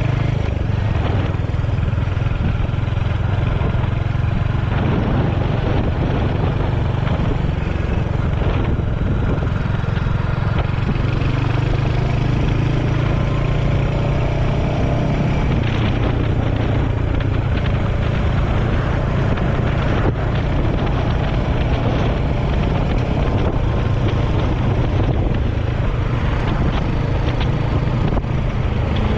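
Royal Enfield Hunter 350's single-cylinder engine running steadily under way, with wind rushing over the microphone.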